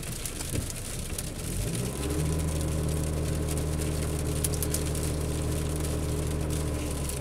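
A 2007 Pontiac G6's engine starts about a second and a half in; its pitch rises briefly, then it settles into a steady idle as the car begins a crankshaft position variation relearn. The sound stops just before the end.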